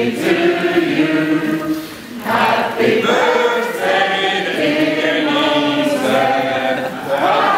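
A group of people singing together in many voices, with a short break about two seconds in before the singing goes on.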